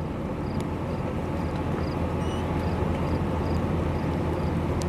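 Steady noise inside a vehicle with its engine running: a low hum under an even hiss, with a faint light tick about twice a second.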